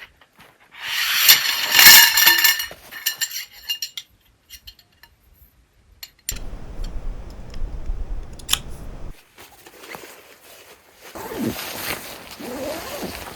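Metal pieces clinking together and ringing for about two seconds, followed after a pause by a low rumble that starts and stops abruptly.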